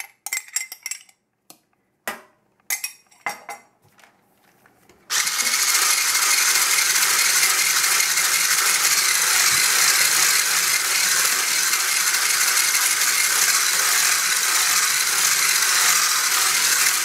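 A few light clinks and knocks, then about five seconds in a handheld electric whisk switches on and runs steadily, its motor whirring as the whisk beats thick cake batter in a small metal saucepan.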